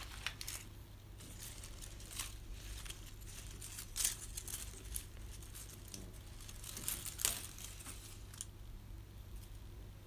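Dry, dead cyclamen leaves and stems crackling and snapping as they are plucked from the base of the plant by hand, in short scattered rustles, the loudest about four seconds in and another near seven seconds.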